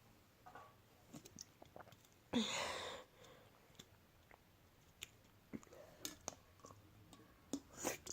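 Faint mouth and throat noises of a person gulping down a fizzy soda: scattered small clicks and swallows, with one louder rush of noise lasting under a second about two and a half seconds in.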